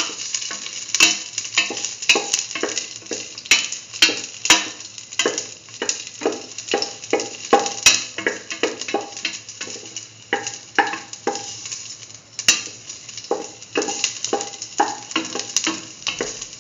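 Raisins frying in hot ghee in a stainless steel pan, sizzling as they puff up, while a spatula stirs them. The spatula strikes and scrapes the pan about twice a second, pausing briefly a little after the middle.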